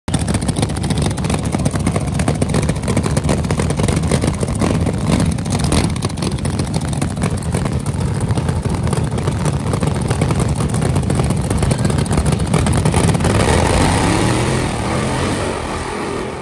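Supercharged-class drag car V8 of a 1937 Chevy coupe, rated at 1500 hp, running loud with a rough, rapid firing beat; it drops away near the end.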